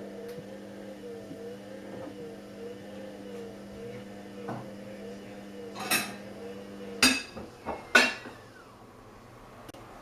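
Whirlpool washing machine humming steadily, with a tone that wavers about every 0.7 s, until it cuts off about seven seconds in. A few sharp clicks and knocks come around the cutoff, the loudest sounds here.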